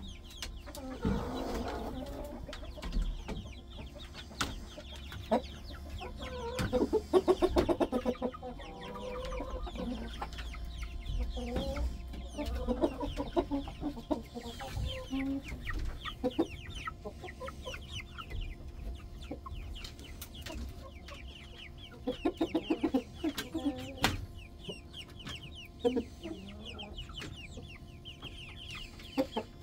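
Chickens clucking and chirping as they settle to roost, with a few short bursts of rapid clucking standing out over many quick high chirps.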